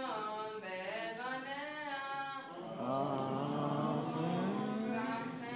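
A bar mitzvah boy's voice chanting Hebrew scripture in traditional cantillation: slow, drawn-out notes that glide up and down, ending on a long note that rises.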